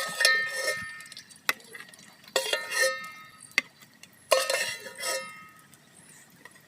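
Metal spatula clanking and scraping against a metal cooking pan as fried eggs are lifted out. There is a knock roughly every second, each ringing briefly.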